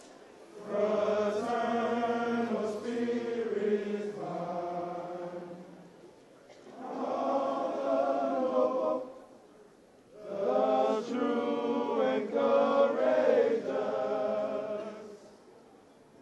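A group of men singing together in slow, held phrases, with short pauses between the phrases.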